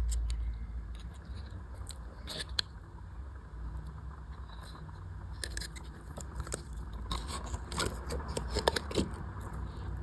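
Slime being squeezed and worked by hand, giving scattered small clicks and crackles that come thickest in the last few seconds.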